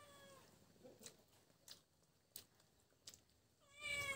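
A house cat meowing: the falling tail of one meow at the start, then a louder, longer meow that drops in pitch near the end. In between, a few light clicks of chopsticks against bowls and soft chewing.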